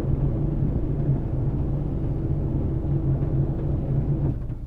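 Fishing boat's inboard engine running steadily with a low hum, its level dropping a little before the end as the engine is throttled back.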